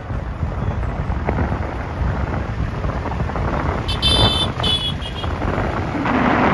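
Road and wind noise from a moving car, a steady low rumble, with a vehicle horn tooting twice in quick succession about four seconds in.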